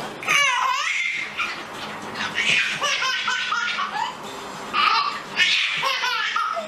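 A baby laughing in repeated bursts of high giggles and squeals, with short gaps between them.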